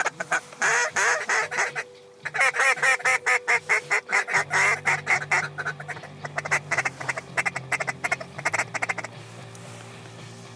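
Loud, rapid duck calling: runs of quacks and fast chatter, one after another, stopping about nine seconds in. A low steady hum comes in about four seconds in.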